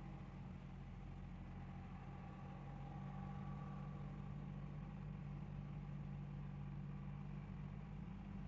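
A vehicle engine running steadily, a faint low hum.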